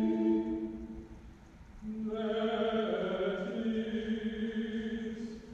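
Mixed choir singing slow, sustained chords. One phrase fades out about a second in, and after a short pause the next phrase begins about two seconds in, tailing off near the end.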